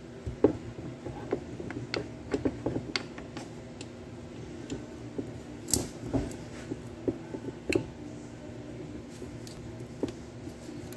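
Light metallic clicks and clinks, irregular and scattered, as a fifth-gear synchro and its shift fork are worked by hand onto the shafts of a Tremec TR3550 five-speed transmission, over a faint steady hum.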